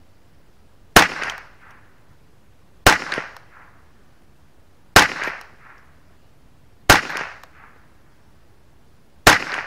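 Five shots from a Ruger 10/22 semi-automatic .22LR rifle firing Wolf Match Target 40-grain ammunition, about two seconds apart. Each is a sharp crack with a short echo tail.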